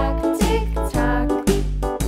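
Background music in a children's style: pitched notes over a held bass line, with a new note about every half second.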